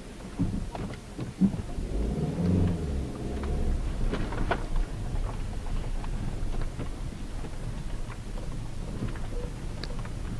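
Cabin sound of a Hyundai Tucson JM with the 2.0 petrol engine driving slowly over a rough dirt road. A low rumble of engine and tyres runs throughout, with scattered knocks and rattles as the car goes over bumps. The engine note swells briefly about two to three seconds in.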